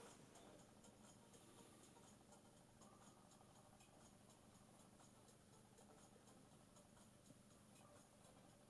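Near silence: room tone with faint, scattered soft ticks.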